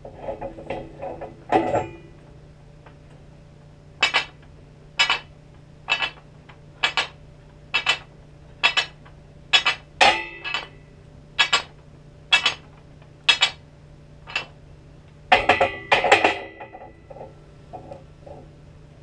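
A loaded steel barbell is lifted out of a power rack's J-hooks with a few metallic clanks, then gives a sharp clink about once a second, about a dozen in all, through a set of bench press reps. Near the end a louder metal clatter comes as the bar is set back into the hooks. A faint steady hum sits underneath.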